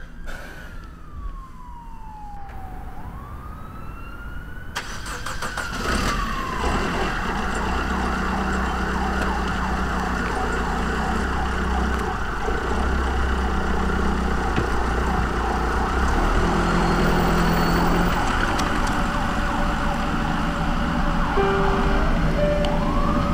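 Emergency vehicle siren wailing in slow rises and falls. About six seconds in, a louder steady rumble of a car engine and road noise joins it, and the siren rises again near the end.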